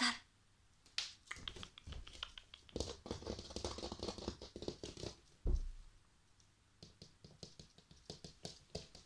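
Toy fox terrier puppy's claws clicking and pattering on a hard wooden floor as it walks about, quick ticks that come thickest in the first half and thin out later. A sharp sound right at the start and a low thump a little past halfway stand out above the clicks.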